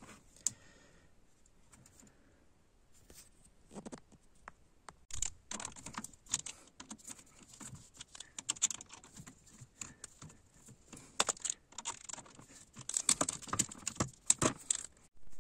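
Screwdriver turning the screws that fasten a new heating circulation pump's motor head to its pump body: irregular small metal clicks and scrapes, starting a few seconds in and coming thicker toward the end.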